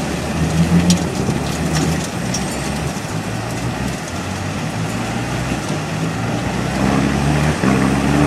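Toyota Hilux engine running under load while the truck pushes through a river, over a steady wash of splashing water. The engine note climbs near the end as it is revved harder.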